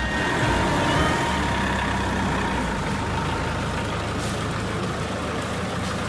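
Truck engine running steadily, a low rumble under an even rushing noise.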